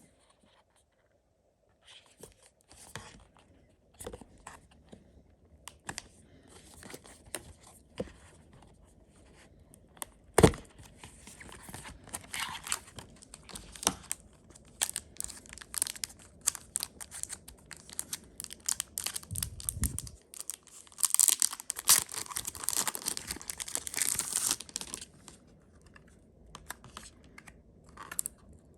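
Packaging being torn open and crinkled, with scattered handling clicks and a sharp tap about ten seconds in. The tearing and rustling is densest for a few seconds past the twenty-second mark.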